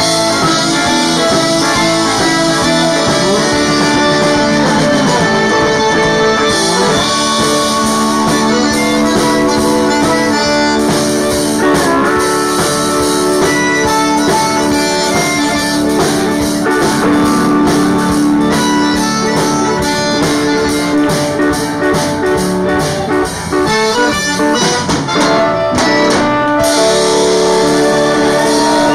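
Live Cajun band playing an instrumental passage: a diatonic Cajun accordion carries the tune, with a steel guitar and a guitar, in sustained notes and sliding pitches.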